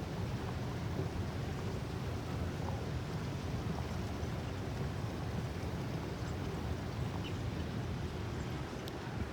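Steady low rumble of an Airbus A321 airliner, with an even hiss above it.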